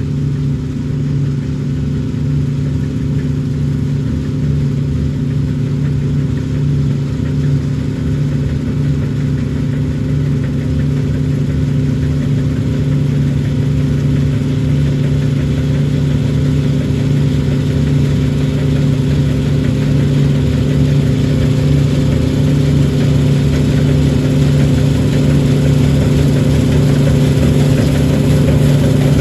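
Engine of a harvest machine such as a combine or tractor running steadily at constant revs, getting slightly louder toward the end.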